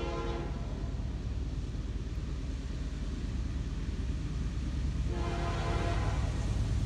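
Approaching diesel locomotive sounding its air horn for the grade crossing: a blast cutting off about half a second in, then a second blast of about a second some five seconds in. A low engine and rail rumble underneath grows louder as the train nears.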